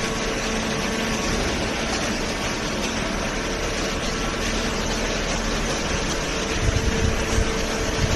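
Hydraulic cardboard baler running: the electric motor and hydraulic pump give a steady hum over a broad mechanical hiss, with a few low thuds near the end.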